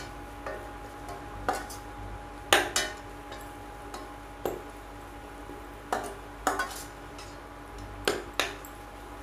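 Metal ladle stirring and scraping a thick masala in a steel kadai, with irregular clinks and scrapes of metal on metal every second or so.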